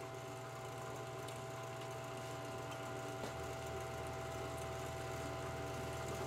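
Electric bench buffer running steadily with its stitched cloth buffing wheel spinning free, a steady motor hum with no work on the wheel.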